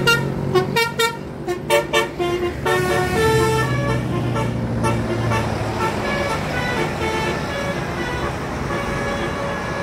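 Bus telolet horn (basuri type) playing a melody. It starts with a quick run of short notes over the first two seconds, then moves to longer held chords that gradually fade, over a low engine drone.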